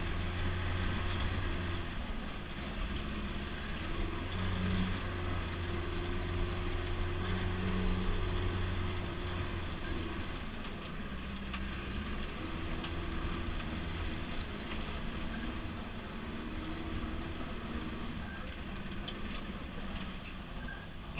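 Pinzgauer all-terrain truck's engine running as it drives along a dirt track: a steady low drone whose pitch rises and falls as the revs change.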